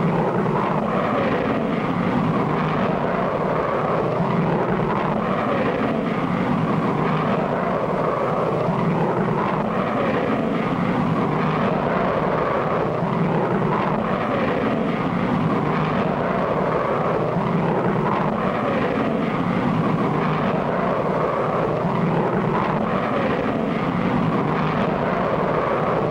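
Cartoon sound effect of a vertical-takeoff jet engine running: a steady rushing noise that holds an even level.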